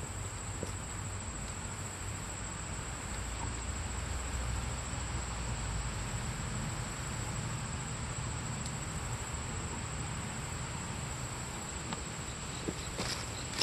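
Steady high-pitched drone of insects, likely crickets, over an even background hiss, with a few sharp clicks near the end.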